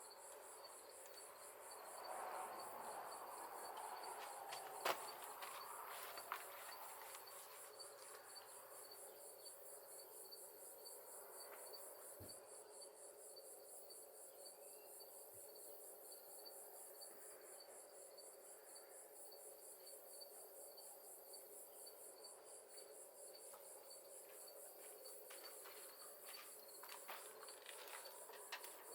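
Faint, steady chirping of crickets in an even pulsing rhythm, with a couple of faint clicks about five and six seconds in.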